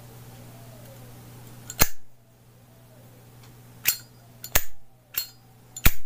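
Zippo lighter in a Vintage 1937 replica street chrome case, its hinged lid being flicked open and snapped shut: sharp metallic clicks, one about two seconds in and four more in quick succession near the end.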